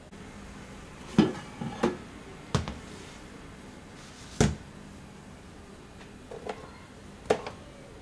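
Plastic microwave rice cooker being handled: its lid and pot knock and clatter in about six sharp, separate knocks.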